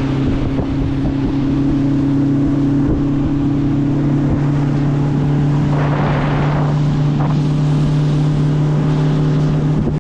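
A small boat's motor running steadily at cruising speed under way, holding an even pitch, with wind noise on the microphone and a brief rush of hiss about six seconds in.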